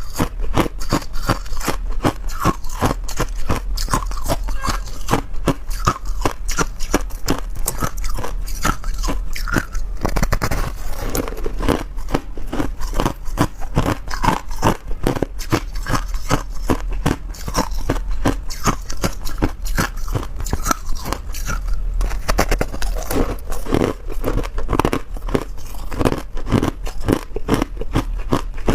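Ice being bitten and chewed: a rapid, continuous run of sharp crunches.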